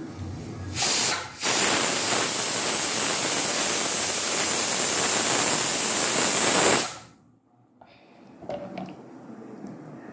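Pressure cooker whistling: steam hisses out loudly with a high whistle tone for about six seconds, with a brief break just after it starts, then cuts off suddenly.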